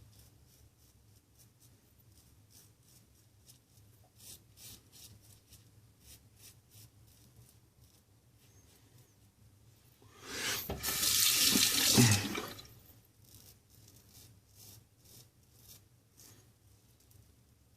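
A tap runs into a sink for about two and a half seconds, starting about ten seconds in and then shut off. Either side of it, only faint short ticks.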